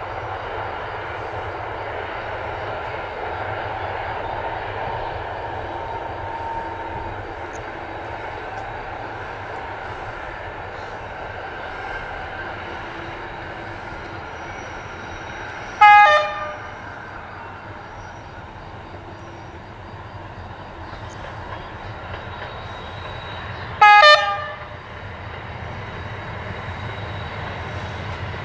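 Former ÖBB class 2143 diesel-hydraulic locomotive hauling a passenger train, its engine running steadily and growing louder near the end as it approaches. It sounds two short horn blasts about eight seconds apart, a little past halfway and again near the end.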